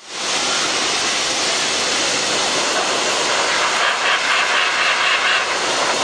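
High-velocity pet grooming dryer blasting air through its hose into a long-haired dog's coat: a loud, steady rush of air.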